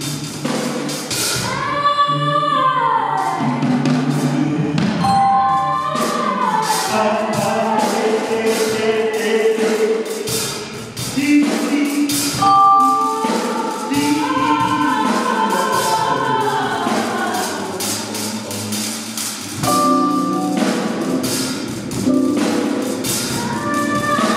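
Free improvisation by a small ensemble: voices sing sliding, wordless lines, some falling in long glides, over frequent sharp percussion strikes, with harp and mallet percussion.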